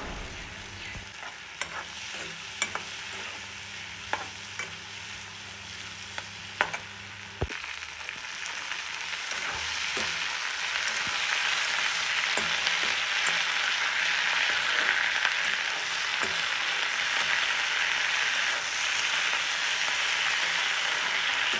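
Chopped onions, then tomatoes and cashews, frying in oil and butter in a steel kadai, with the steel spatula clicking against the pan now and then as it is stirred. About a third of the way in the sizzling jumps up and then holds steady and loud.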